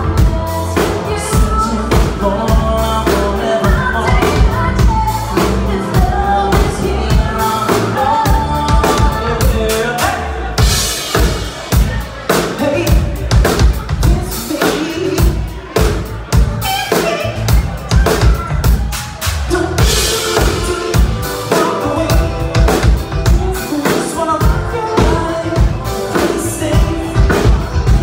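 Live band playing loudly: vocals sung into microphones over a drum kit with a steady beat, electric bass guitar and keyboard.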